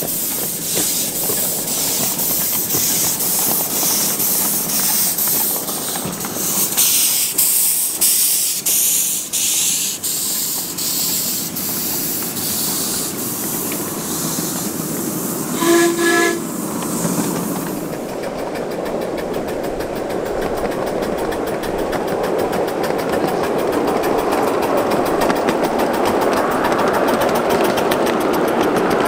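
Miniature live-steam locomotives on riding-scale track: steam hiss with a regular beat of exhaust and wheels clicking on the rails as one train passes. A short whistle toot comes about 16 seconds in. In the second half a steadier rolling rumble of wheels on track slowly grows louder as another engine comes by.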